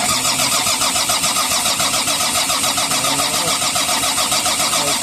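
Volvo D6D six-cylinder diesel cranking steadily on its starter motor with an even rhythm, without firing: a no-start caused by fuel not being delivered.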